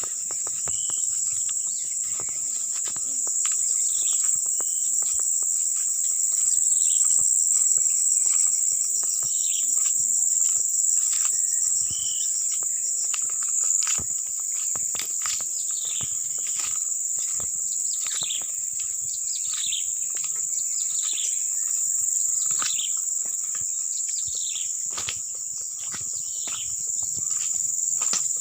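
A steady, shrill chorus of insects, with short falling calls repeated every second or two and scattered sharp clicks.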